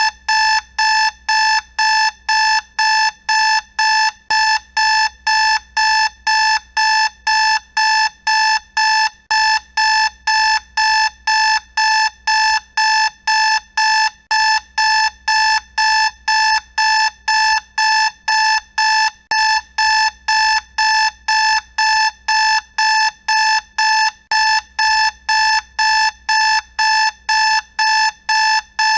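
Electronic alarm clock beeping: a high-pitched beep repeating steadily about twice a second without letting up.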